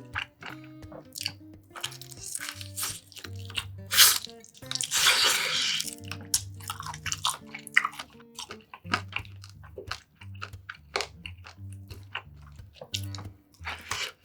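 Close-miked eating sounds, with crisp crunching bites and chewing of grilled spare ribs and stir-fried squid, over soft background music. A longer, louder noisy stretch comes about five seconds in.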